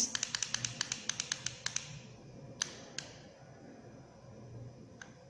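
Small push buttons on the digital microscope's controls clicking: a fast run of about eight presses a second for nearly two seconds, then a few single presses. These are the up and down buttons being pressed to step through the digital zoom.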